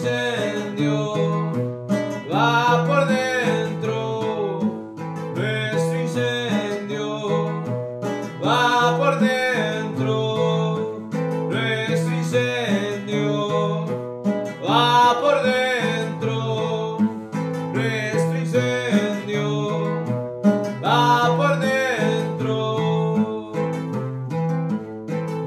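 Bandola played in a steady rhythmic pattern, with a man singing long, gliding phrases over it that return about every three seconds.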